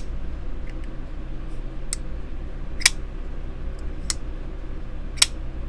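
Kizer Deviant folding knife being flicked open and shut, the blade snapping into place with sharp metallic clicks about once a second, over a steady low hum.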